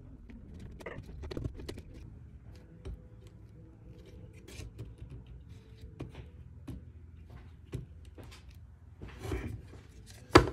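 Hand screwdriver driving screws into a 3D-printed plastic router plane: small scattered clicks and handling rattles of plastic parts. A single sharp knock near the end.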